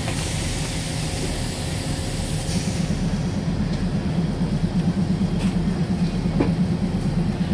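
Diesel train engine running with a steady low rumble that grows louder about two and a half seconds in, while a high hiss dies away at the same moment.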